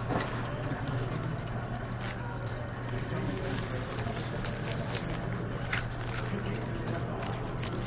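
Poker chips clicking lightly and irregularly as a player handles and stacks them, over a steady low hum of the card room.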